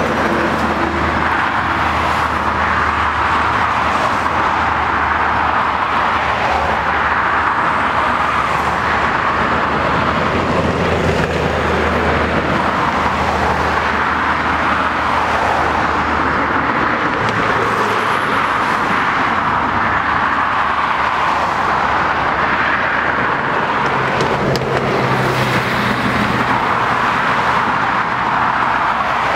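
Airliner engines running at taxi power, from a Delta Airbus A330 twin-jet and an ATR 72 turboprop: a steady rushing noise that slowly swells and eases, with a low hum underneath that drops away about halfway through.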